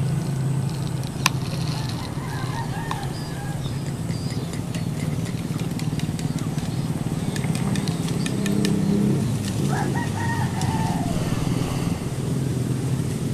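A rooster crowing, with one clear crow of about a second near ten seconds in and fainter calls earlier, over a steady low hum. A single sharp click comes about a second in.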